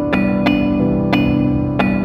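Background music: slow piano notes, a new one struck about every half second and left to ring.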